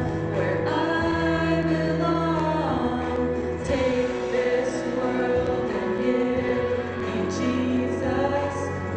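Women singing a Christian song over instrumental accompaniment, with long held notes over a steady bass.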